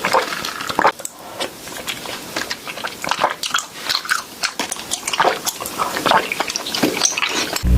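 Close-miked mouth sounds of someone eating boba tea: irregular wet clicks, smacks and bites while chewing. A loud low hum cuts in right at the end.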